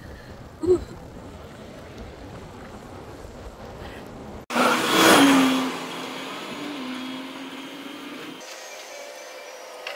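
Steady wind and road noise while riding a road bike. About halfway through, after a cut, a motor vehicle passes close with a loud rush and a steady engine hum that carries on for a few seconds.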